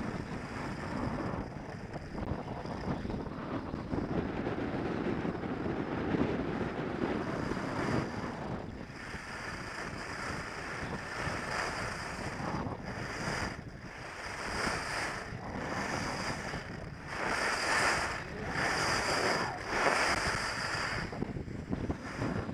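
Wind rushing over the microphone during a downhill ski run, with the hiss of skis sliding on groomed snow. From about a third of the way in, the hiss swells and fades every second or so, one surge per turn.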